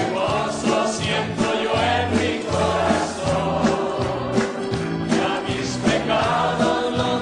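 Background music: a choir singing over instrumental backing with a steady beat.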